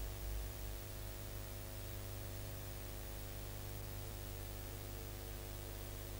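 Faint steady hiss with a low mains hum: the blank soundtrack noise of an old 16mm film print during its countdown leader, with no programme sound.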